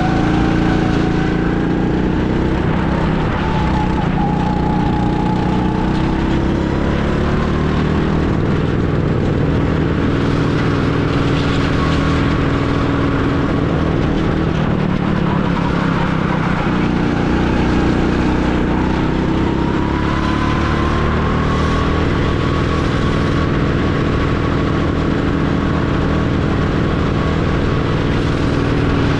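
A go-kart engine runs continuously under load, its pitch falling and rising as the kart slows for corners and accelerates out of them.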